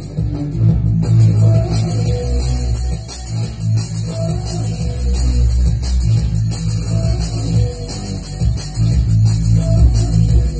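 A song with guitar and a strong bass line; a short phrase repeats about every three seconds.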